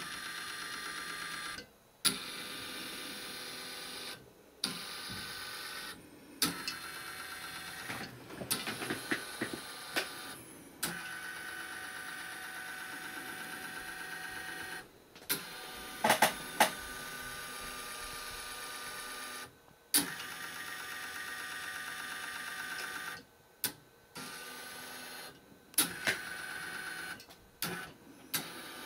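Small stepper motor, driven from an L298N board through a pinion and gearing onto a timing belt, whining as it moves a Meccano platform, in runs of two to four seconds with brief stops between, a click as each move starts. A few sharper clicks and rattles come about a third of the way through and, loudest, just past halfway.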